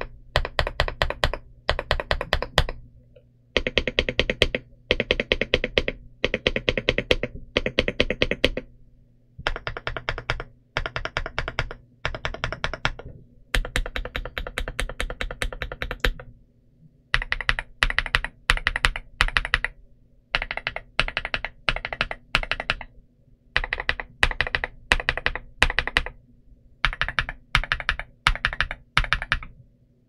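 VTER K75 mechanical keyboard with Huano-made VTER Bloom linear switches and PBT OEM-profile keycaps being typed on, in quick bursts of keystrokes separated by short pauses.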